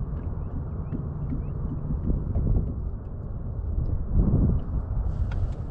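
Low, uneven rumble of wind and water around a small fishing boat, with faint short bird chirps in the first couple of seconds.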